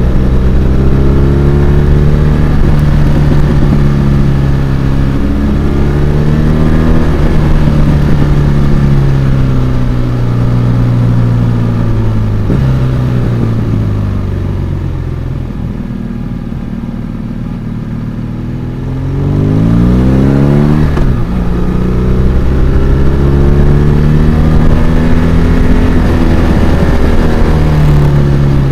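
BMW R1200RS LC's liquid-cooled boxer twin engine running at speed, its pitch stepping up and down with throttle and gear changes. About halfway through it falls in pitch and goes quieter as the bike slows for a tight bend. Around two-thirds in it revs up sharply through the gears, then settles back into steady running.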